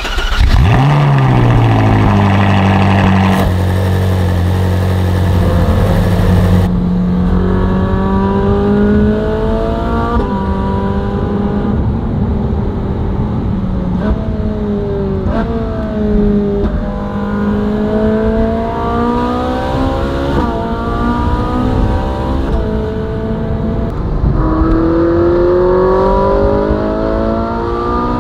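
Ferrari 458's naturally aspirated V8 starting up with a quick flare of revs and settling into a steady idle. Then, heard from inside the car on the move, the engine pulls up through the gears, its pitch climbing and dropping back at each upshift, several times over.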